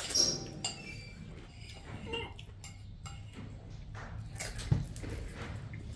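Eating sounds of pani puri: small mouth and chewing noises with light clicks at the table. There is a short high chirp near the start and a sharp knock about three quarters in.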